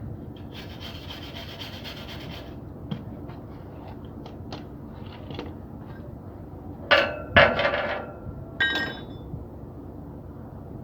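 Hand work with tools on steel: a scraping, rasping stretch for about a second and a half, scattered light taps, then three sharp metallic clangs that ring briefly, two close together and one a second later.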